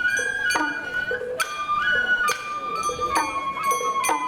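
Sawara bayashi festival music: a shinobue bamboo flute playing a held, stepping melody over sharp percussion strikes about once a second.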